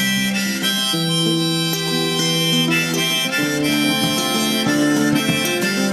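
One-man band's instrumental break: a harmonica plays a melody of held notes over a strummed acoustic guitar.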